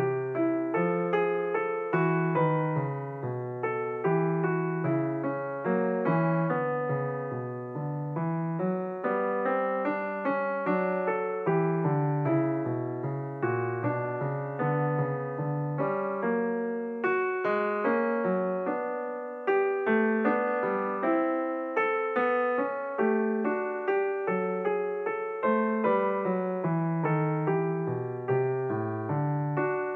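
Piano music playing: a continuous flowing melody over a moving bass line, note after note.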